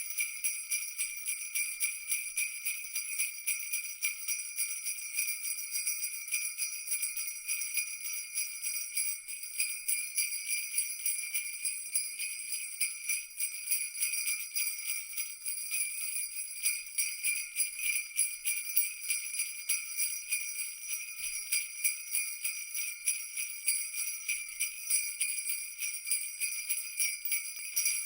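Jingle bells shaken without pause in a dense, steady jingle, all high and bright with nothing low underneath.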